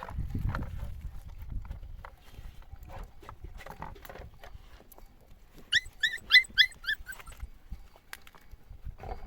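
A dog yelping: a quick run of about eight short, high yips about six seconds in, over low rumble and scattered knocks.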